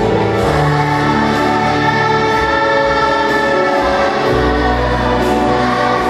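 Children's choir singing a held, slow melodic line to instrumental accompaniment, with sustained bass notes that shift about a second in and again about four seconds in.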